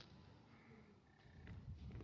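Near silence: faint background with a few soft clicks.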